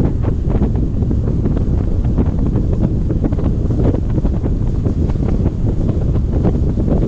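Strong wind buffeting the microphone in a loud, steady low rumble, with many irregular sharp ticks scattered through it.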